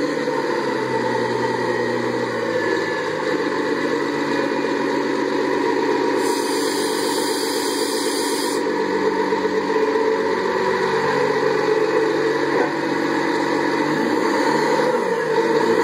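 A heavy-equipment diesel engine running steadily, its pitch wavering slightly now and then.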